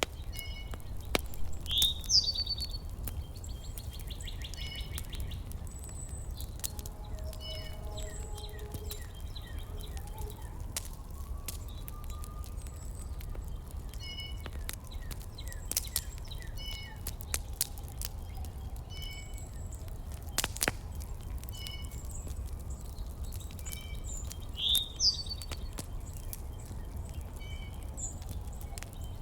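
Small birds chirping in short repeated notes, with a couple of sharper sweeping calls, over a steady low rumble and scattered faint clicks.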